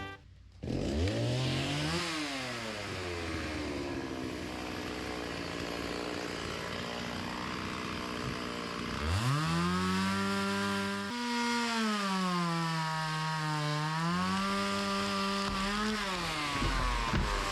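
Chainsaw running, its engine speed rising and falling repeatedly: a short rev about two seconds in, a steadier lower run, then revved higher from about nine seconds in with dips and rises before dropping near the end.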